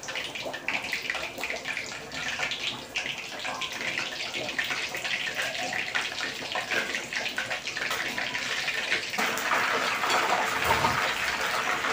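Floured talakitok (trevally) fish pieces deep-frying in hot oil: a steady sizzle with fine crackles, which grows louder about nine seconds in as the oil bubbles up around the fish.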